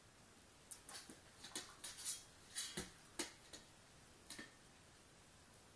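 An Australian shepherd's paws and claws tapping and knocking on a stainless steel bowl as it steps around it: a run of light, quick clicks, then a couple more about four seconds in.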